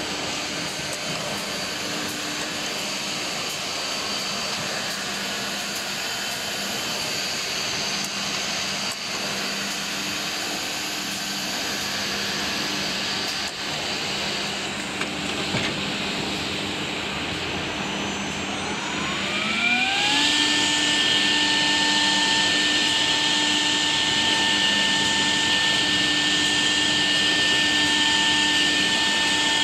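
CNC router with a linear tool changer running, a steady rush of machine and dust-extraction noise. About two-thirds of the way in, a spindle spins up with a rising whine, then holds a steady, louder high whine at full speed.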